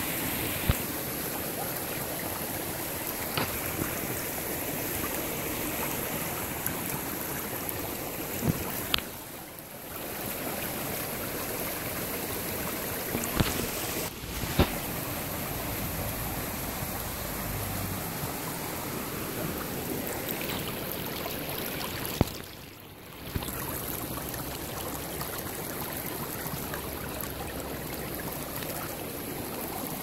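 Shallow stream running over gravel and stones: a steady rush of water, with a few sharp clicks scattered through it. The sound dips away briefly twice.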